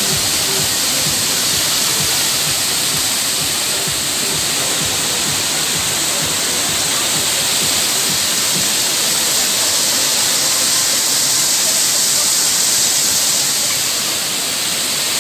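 Steady rush and hiss of water spraying and pouring from a children's water-play structure into a shallow splash pool.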